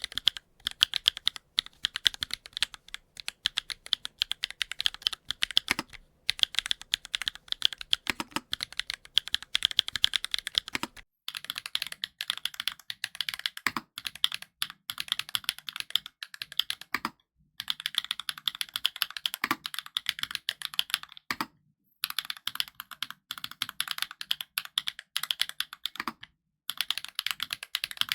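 Continuous typing on a custom mechanical keyboard, the DNworks SBL with HMX/yowzers Firecracker switches and GMK Earth Tones keycaps: fast runs of crisp keystrokes broken every few seconds by short pauses, with an occasional deeper stroke among them.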